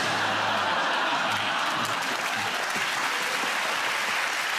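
Studio audience applauding a punchline: a steady, even round of clapping.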